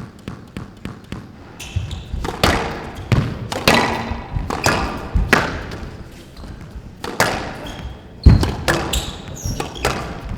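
Squash rally: the ball hitting rackets and the court walls, roughly one to two hits a second, each with a short echo. The loudest hit comes about eight seconds in.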